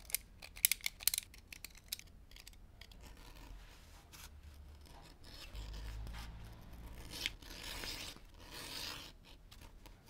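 Hand edge-trimming tool shaving the edges of 2 mm vegetable-tanned leather: short dry scraping strokes and light ticks at first, then a longer run of scraping in the second half.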